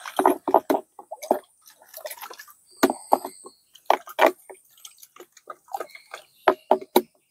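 Water sloshing and splashing in a 16-litre sprayer tank as wettable-powder fungicide is stirred in. The strokes come irregularly, with a few sharp knocks.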